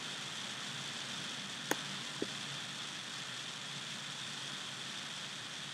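Steady hiss of recording background noise, with two short mouse clicks about two seconds in, half a second apart.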